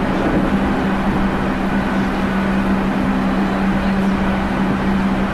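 Running sound inside a JR Central 311 series electric multiple unit at a steady pace: an even rumble of wheels on rail under a steady hum, with air-conditioning noise mixed in.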